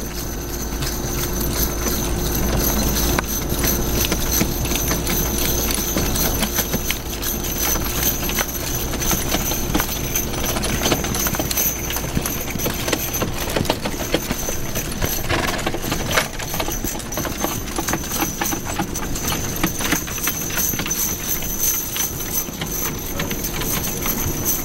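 Team of two bay draft horses trotting in harness on grass, a steady run of hoofbeats, with the wagon they pull rattling along behind.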